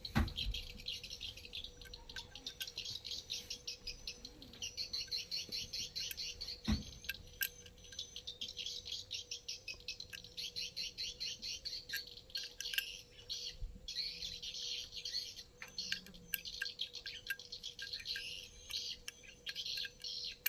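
Small birds chirping rapidly and continuously, with a few short knocks in between and a faint steady hum underneath.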